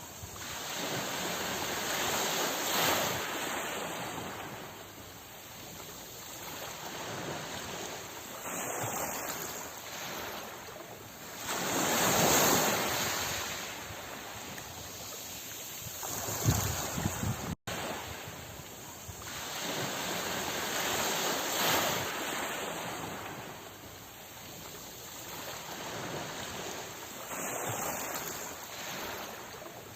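Ocean waves breaking and washing back, the surf swelling and ebbing every few seconds in a steady hiss. There is a momentary dropout a little over halfway through, where the recording loops.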